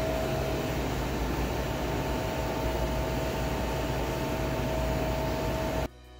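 Commercial kitchen ventilation fan running: a steady rushing noise with a steady whine over a low hum. It cuts off suddenly near the end.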